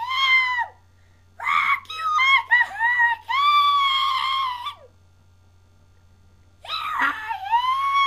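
A person shrieking in a very high, squawky voice, in four spells of drawn-out, arching cries with short pauses between them. A faint steady hum runs underneath.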